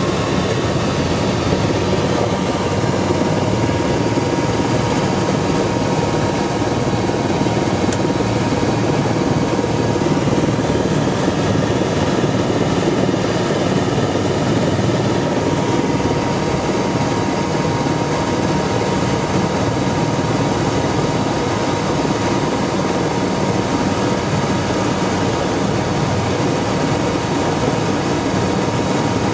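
Helicopter in flight heard from inside the cabin: a steady drone of engine and rotor, with a thin, steady high whine running through it.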